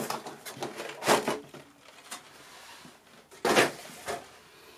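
Clear plastic packaging cover being pulled off a toy box's moulded tray, crackling and rustling, with two louder crackles about a second in and about three and a half seconds in.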